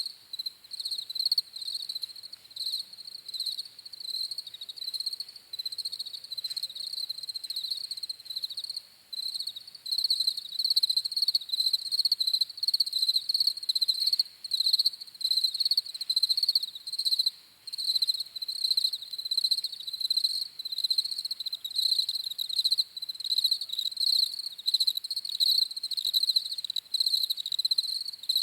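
Crickets chirping in a continuous high-pitched chorus of rapid, overlapping chirps.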